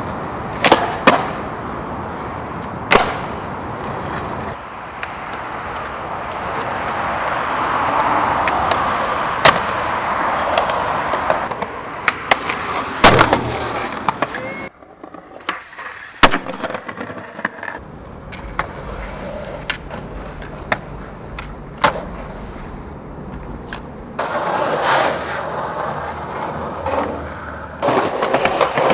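Skateboard rolling on concrete, with many sharp clacks of the board popping and landing. The rolling noise changes abruptly several times.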